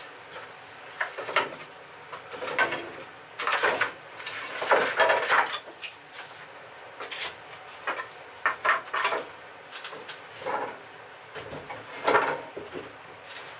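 Old wooden boards and a large board sheet being handled and laid onto a wooden table: irregular knocks, clatters and scrapes, with a longer run of scraping and rattling a few seconds in.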